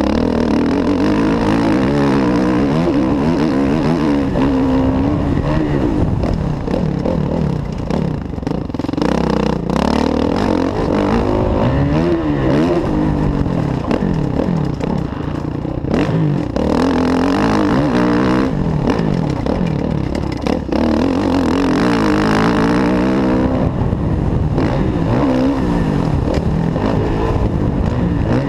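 Kawasaki KX450F's single-cylinder four-stroke engine on a motocross track, revving up hard and falling back again and again as the rider accelerates, shifts and rolls off the throttle.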